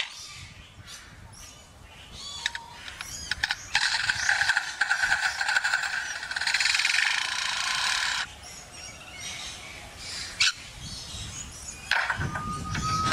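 A lyrebird mimicking. A few short gliding whistles are followed by about four seconds of harsh, pulsing buzz, its imitation of a chainsaw, which stops abruptly. Scattered clicks and a sharp snap follow.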